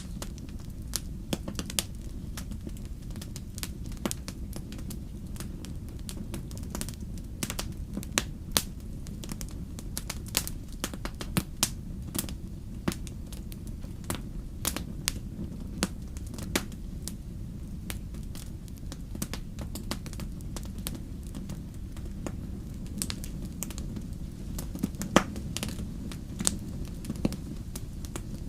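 Wood fire burning in a fireplace, crackling with irregular sharp pops and snaps over a steady low rumble. One pop about 25 seconds in is the loudest.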